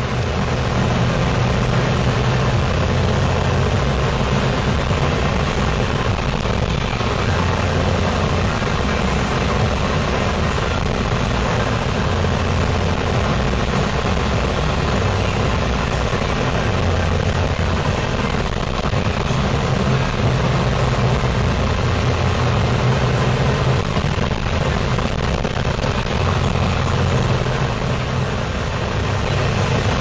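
Inside a car or truck driving on a snow-covered road: the engine's low, steady hum, which shifts up and down in pitch now and then, under a constant rush of tyre and road noise.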